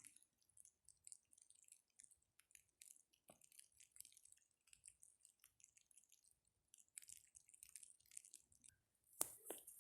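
Footsteps crunching and squeaking on packed snow, a loose series of short crisp crunches, with a louder crunch near the end.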